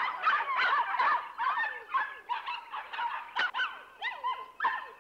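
A litter of collie puppies whimpering and yipping together: many short, high cries that slide up and down in pitch and overlap one another without a break.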